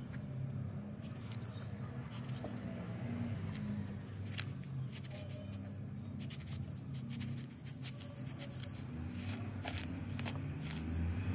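A thin metal blade scraping and picking at the spongy coconut flower inside a split sprouted coconut: faint scratches and small clicks, coming in short clusters over a steady low hum.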